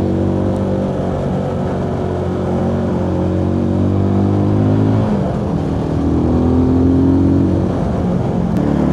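Benelli TRK 251's single-cylinder engine running under way; its note dips about five seconds in, then rises again as it pulls away.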